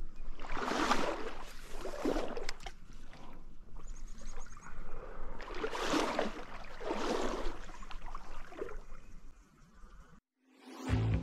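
Stream water sloshing and splashing in slow swells about a second long, four or so of them, as from wading or handling in the water. Just before the end the sound cuts out and guitar music starts.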